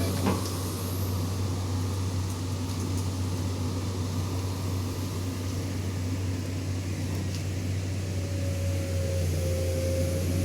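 Heavy diesel engine of earth-moving equipment running steadily, a low, even drone. A faint thin whine joins about eight seconds in.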